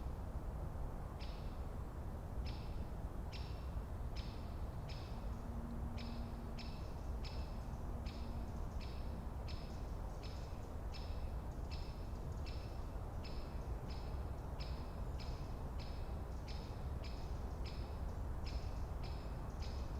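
Forest ambience: a steady low rumble under a short, high chirp repeated evenly about one and a half times a second. A faint low hum comes and goes three times midway.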